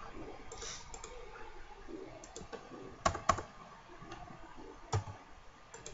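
Clicks from a computer mouse and keyboard: a few sharp clicks over faint room noise, two close together about three seconds in and another about five seconds in.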